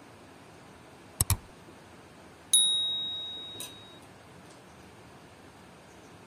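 A quick double mouse-click, then about a second later a bright bell ding that rings out and fades over about a second and a half: the click-and-bell sound effect of a subscribe-button animation.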